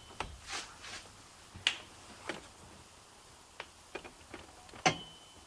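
Irregular sharp knocks and clicks of a steel roll-cage bar being wedged into place inside a car body. A strong one comes about a second and a half in, and the loudest comes near the end with a brief metallic ring.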